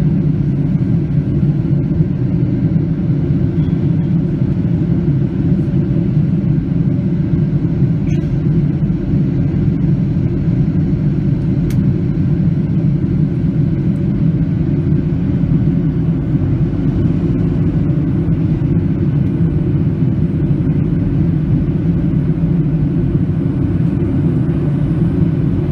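Steady cabin noise of a Boeing 737-600 climbing after takeoff: the low drone of its CFM56-7B turbofans and the rush of air on the fuselage, heard from inside the cabin, with a few faint steady tones over the deep rumble.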